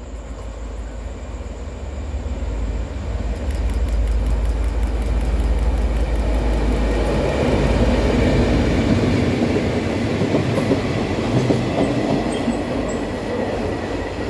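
A locomotive-hauled freight train passing close by on the platform track. Its rumble grows over the first few seconds as the locomotive draws near, then holds loud and steady as the line of box wagons rolls past.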